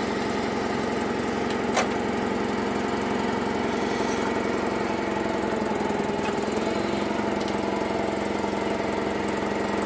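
Forklift engine running steadily as it eases a crated engine onto a pickup's bed, with one sharp click about two seconds in.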